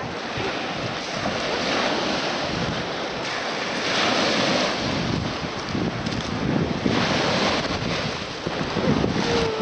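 Baltic Sea surf breaking and washing up on the shore, swelling louder with each wave, about four and seven seconds in, with wind buffeting the microphone.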